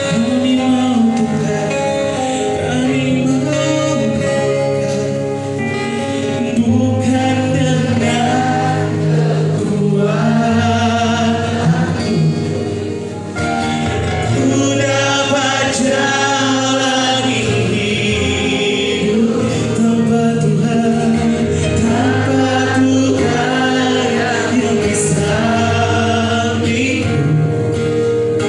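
A Christian worship song being sung, with a wavering, vibrato-laden voice over sustained low accompaniment notes.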